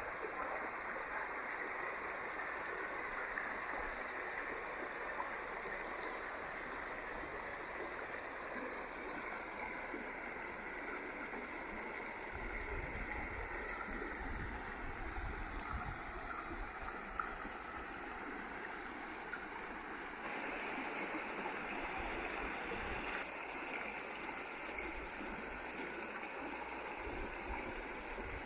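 The Jemez River rushing over rocks in a shallow riffle: a steady wash of running water that gets slightly louder about two-thirds of the way through.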